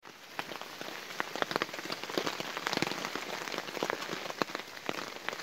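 Rain falling, a steady hiss with many sharp, irregularly spaced drop hits close by.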